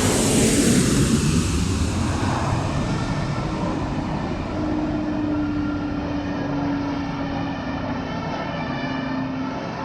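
Airplane passing close by: engine noise swells to its loudest about a second in, its pitch sliding down as it goes past, then settles into a steady hum that slowly fades.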